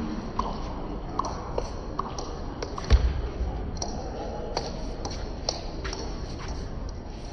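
Table tennis rally: the ball clicking off the paddles and the table in a steady back-and-forth, with a heavier thump about three seconds in.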